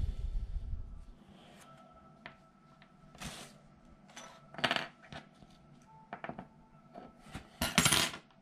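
Small 3D-printed wood-PLA pieces being handled and set down on a hard tabletop: scattered light clicks and taps, with a louder knock at the start and a cluster of louder taps near the end.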